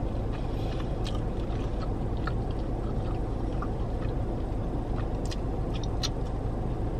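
Steady low hum of a parked car running, heard inside the cabin, with faint scattered clicks from chewing and handling food.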